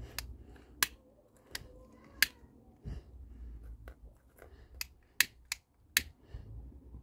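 Trigger of a long-nosed utility lighter clicking: about a dozen sharp clicks at irregular intervals as its igniter is sparked over and over.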